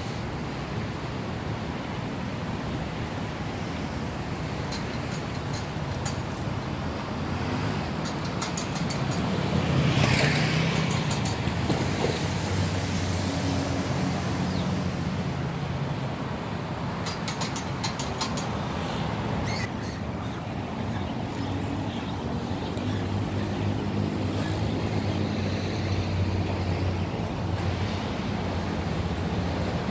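Steady road traffic noise, loudest about ten seconds in as a vehicle passes, with a few faint clicks here and there.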